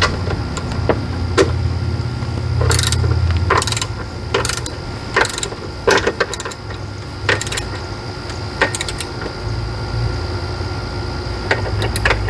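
Socket ratchet clicking in short bursts about once a second as a bracket screw is tightened, over a steady low hum.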